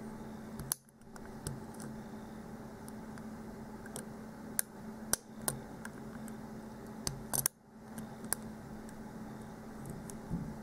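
Light metallic ticks and scrapes of a hook pick and tension wrench working the pins of a pin-tumbler lock during single pin picking: a few sharp clicks, scattered and uneven, mostly in the middle of the stretch.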